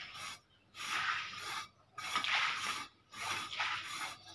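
Rhythmic scraping strokes, about one a second, of a hand tool spreading thin wet cement slurry across a concrete floor base.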